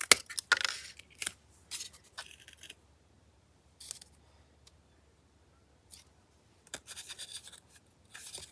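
Scissors cutting paper: short snips in several bursts, with pauses between them.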